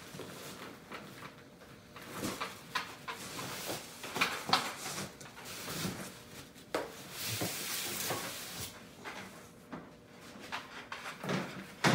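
Handling noise of a cardboard box and a large padded fabric carry bag being pulled out of it: irregular knocks, rustles and scrapes of cardboard and nylon, with a longer sliding scrape about seven to eight seconds in as the bag comes up out of the box.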